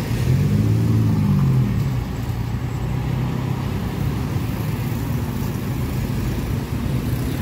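Road traffic passing: one vehicle engine goes by close from about half a second in, its pitch rising then falling, over a steady rumble of cars and motorcycles.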